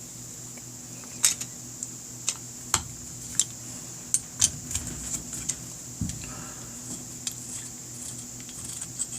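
Small metal parts and a screwdriver clicking and tapping against a motorcycle carburetor, with about a dozen irregular sharp clicks as the jets are worked out. A steady background hum runs underneath.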